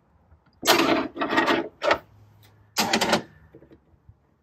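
A small hand tool scraping and filing a notch in a cable cover, in four short rasping strokes over the first three seconds, cutting a side exit for the inverter's cables.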